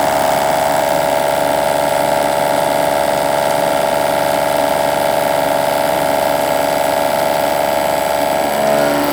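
ProtoTRAK CNC milling machine running a program, its spindle turning a three-flute inserted cutter that cuts a slot across an aluminum part: a steady, loud machine whine made of many held tones, shifting slightly near the end.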